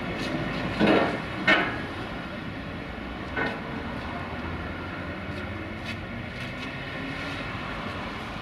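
Heavy steel ramp rails being handled and set down: two sharp metal clanks about a second in, and a weaker one near the middle, over a steady background hum.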